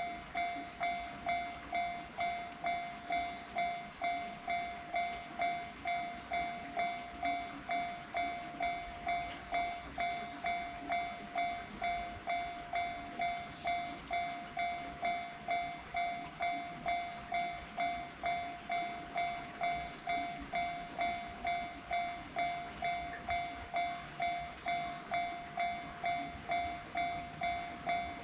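Railway level-crossing warning bell ringing in an even, unbroken rhythm, about three strikes every two seconds: the signal that a train is approaching the crossing.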